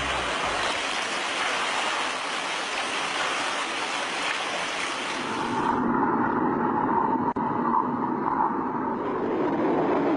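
Hot tub water rushing and churning: a steady noisy rush that changes to a duller sound about six seconds in, with a brief gap just after.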